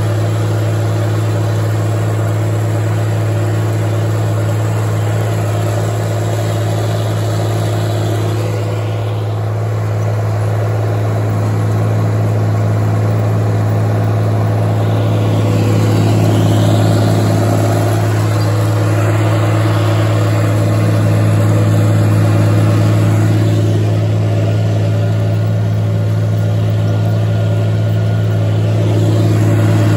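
Farm tractor's diesel engine running at a steady speed, its pitch holding level throughout.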